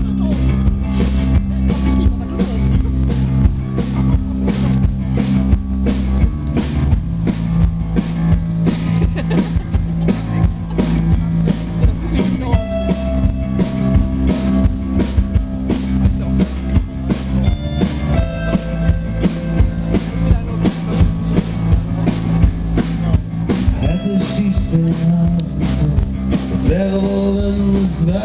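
Live band playing a song on acoustic guitars, bass guitar and drum kit, amplified through the stage PA, with a steady beat.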